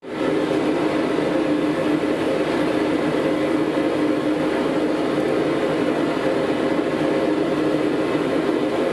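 Steady drone of a blacksmith's forge running, a constant rushing noise with a fixed low hum in it, starting abruptly.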